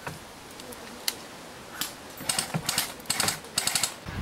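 Airsoft gun firing several short full-auto bursts of rapid clicks, starting about halfway through.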